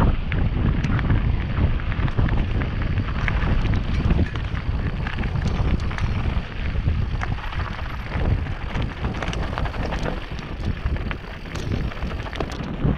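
Mountain bike rolling down loose, rocky singletrack: tyres crunch over gravel and the bike rattles, with frequent sharp clicks and knocks. Heavy wind buffets the action camera's microphone throughout.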